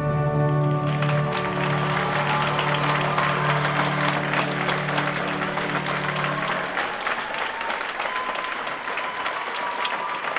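Audience applauding, starting about a second in, over the last held chord of the ballet music, which fades out around seven seconds in and leaves only the clapping.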